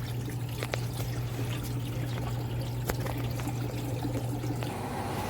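Giantex portable washer draining: its built-in pump runs with a steady low hum while water pours out through the drain hose. The hum breaks up near the end.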